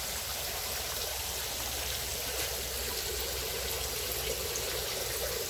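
Water running steadily into a fish vat, a continuous trickling splash from the vat's flow-through water supply.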